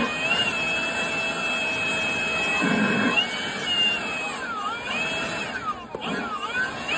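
Cordless electric leaf blower running: a high motor whine over rushing air, steady at first, then dipping and recovering in pitch several times in the second half.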